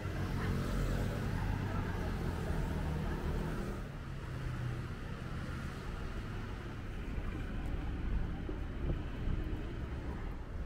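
City street traffic: cars and motor scooters running past, with an engine hum strongest in the first four seconds and a steady traffic rumble after.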